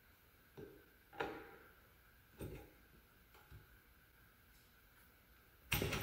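A handful of short, light metallic clicks and knocks from an Odyssey Thunderbolt+ BMX crank arm being worked onto its hex spindle on the sprocket side, with a louder clunk near the end.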